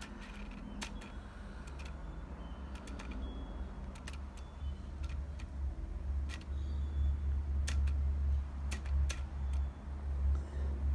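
Scattered faint clicks from the LA-EA4 adapter's screw-drive autofocus working a Minolta 70-210mm f/4 'Beercan' lens in continuous autofocus, over a low rumble that grows louder about halfway through.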